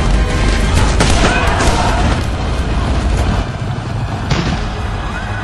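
Battle din of black-powder musket shots and booms over a deep rumble, with occasional distant cries; it eases about three seconds in, and a single sharp shot rings out after that.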